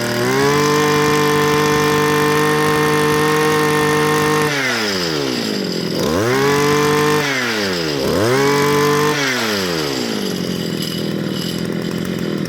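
Kioritz Echo 2650 brush cutter's small two-stroke engine on a test run: revved up and held at high speed for about four seconds, dropped back, blipped up twice more, then settling to a steady idle for the last couple of seconds.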